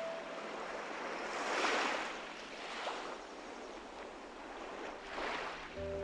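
Ocean waves surging and washing, swelling and fading in several surges, the loudest under two seconds in.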